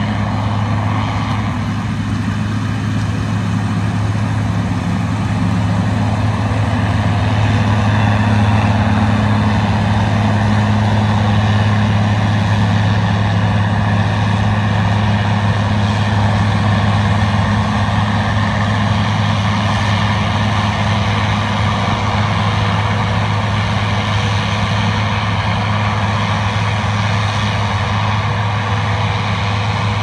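Diesel engine of Case harvest machinery working a corn field, a loud, steady low drone with a noisy rush above it that swells slightly about a third of the way in.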